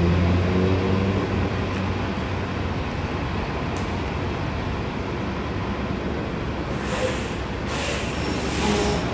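Road traffic: a steady rush of passing vehicles, with a heavy engine's low hum fading out in the first second and two short hissing surges near the end.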